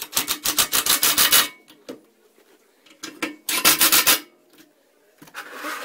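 Ratchet wrench clicking rapidly in two bursts as bolts on a treadmill frame are tightened. The first burst lasts about a second and a half, and a shorter one comes about three and a half seconds in.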